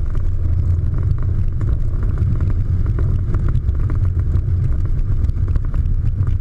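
Cessna T206's turbocharged six-cylinder engine and propeller running steadily at low power on the landing roll-out, a deep rumble, with wind buffeting the microphone.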